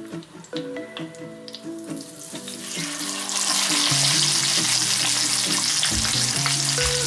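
Marinated sea bream laid onto curry leaves in hot coconut oil: faint crackling at first, then a sizzle that swells sharply about three seconds in as the fish meets the oil, and goes on frying steadily. Soft background music plays underneath.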